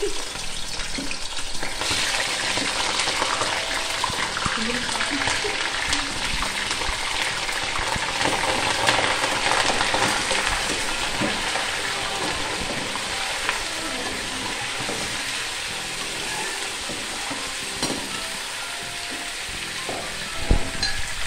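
Chicken pieces sizzling as they fry in hot oil in a metal karahi, stirred with a metal slotted spoon that knocks against the pan a few times. The sizzle grows louder about two seconds in.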